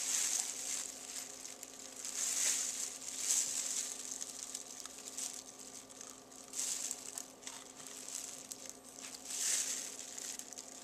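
Knife filleting a trout on a wooden cutting board, cutting along the fish, with a plastic bag worn over the holding hand crinkling. It comes as several short hissy scraping bursts.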